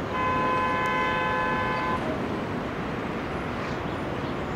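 Locomotive horn giving one steady blast of about two seconds, cutting off about two seconds in, over the steady rumble of a passing freight train.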